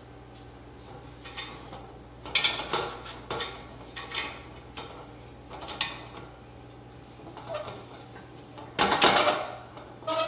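Steel Z-axis linear rod being worked down through linear bearings into its holder on an aluminium extrusion frame: irregular light metallic clicks and clinks, with the loudest clatter about nine seconds in.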